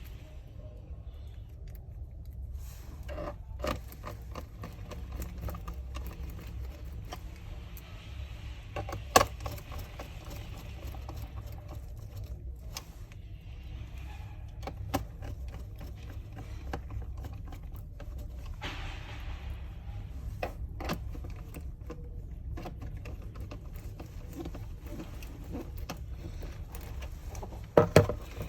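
Scattered light clicks and a few sharper knocks from a screwdriver and the laptop's plastic base cover being handled as the base screws are tightened, over a steady low hum.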